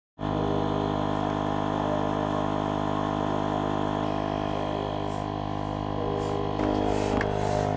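Steady, unchanging mechanical hum made of several fixed tones, stepping up a little louder about six and a half seconds in, with a couple of sharp clicks near the end.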